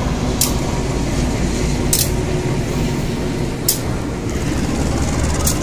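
A diesel locomotive hauling loaded ballast hopper wagons passes close at slow speed. The steady low rumble of the engine and wheels is broken by a sharp clack from the rail joints about every one and a half to two seconds, four times.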